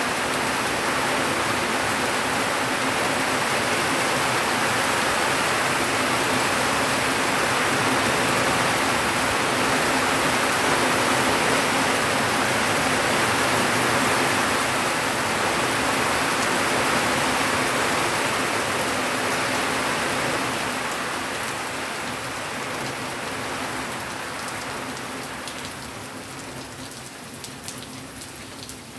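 Heavy rain falling steadily. It grows quieter over roughly the last eight seconds, with separate drops pattering more distinctly near the end.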